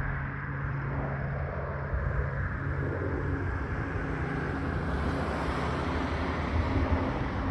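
Beech 1900C twin turboprop climbing out after takeoff: a steady propeller and turbine drone with a low hum, growing slightly louder and brighter as the aircraft nears.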